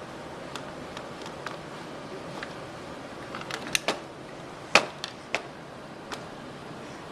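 Irregular sharp clicks and taps, faint at first, then a quick cluster and the loudest tap a little under five seconds in, over a steady low hiss.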